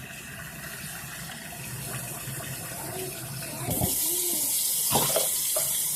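Hot water running from a sink tap, a steady hiss that grows louder and brighter about two-thirds of the way in, with a few light knocks near the end.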